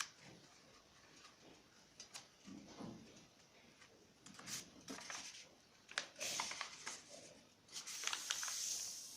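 A square sheet of paper being folded and creased by hand: rustling and crackling with scattered sharp ticks, and louder sliding swishes in the second half.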